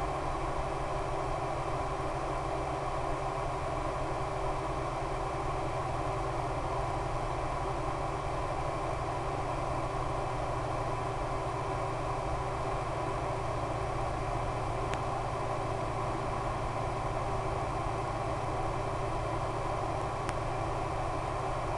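Steady drone of an RC plane's E-flite Power 10 brushless electric motor spinning an 11x7 APC propeller in flight, under an even rushing hiss, unchanging in pitch and level.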